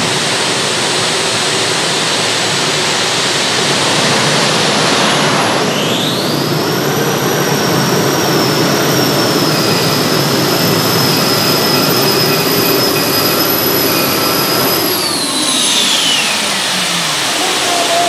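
Multi-engine unlimited-class pulling tractor running at full power down the track. A high whine rises about six seconds in, holds steady over the engines' constant din, then glides down and fades near the end as the run finishes.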